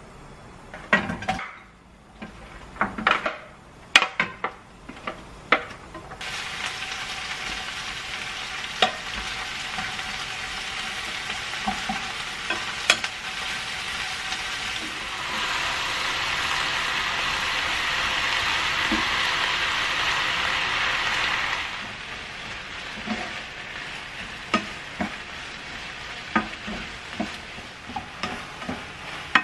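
Sliced onions frying in oil in a non-stick pan on a gas burner and being stirred with a wooden spatula. A few sharp knocks and clatters in the first seconds, then a steady sizzle sets in about six seconds in, loudest around the middle, with short taps and scrapes of the spatula against the pan.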